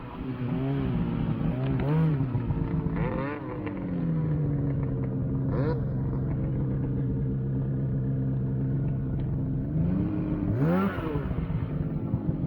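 Snowmobile engine revving up and down a few times, then running at a steady pitch, with another sharp rev near the end.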